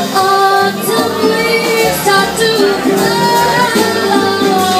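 Live jazz performance: a woman singing long held notes over a small band, with a bass line stepping along underneath.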